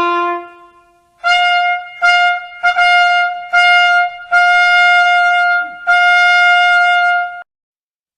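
Trumpet sounding a call of six notes all on one pitch, short notes first and then longer held ones, cutting off abruptly near the end. A lower held note from the phrase before fades out at the start.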